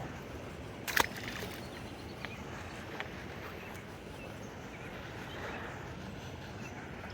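Steady outdoor background noise with one sharp click about a second in and a couple of faint ticks later.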